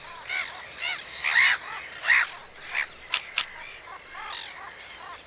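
Colony of waterbirds calling: many short, harsh, arched calls, several birds overlapping, a few a second. Two sharp clicks come about three seconds in.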